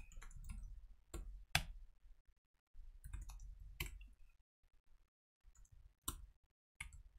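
Computer keyboard typing: scattered soft key clicks, with a few louder single keystrokes standing out.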